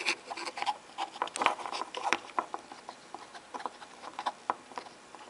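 Irregular small clicks and taps of fingers handling two aluminium iPod Shuffle players and the plastic film still on one of them, turning them side by side. The clicks thin out near the end.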